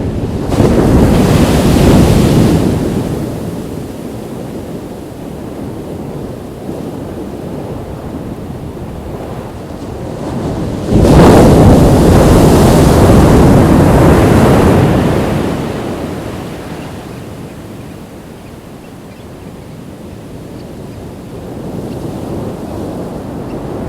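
Ocean waves breaking on a beach. One wave crashes about half a second in and fades within a few seconds. A second, louder one breaks suddenly about eleven seconds in and washes out slowly over several seconds, with quieter surf wash between and after.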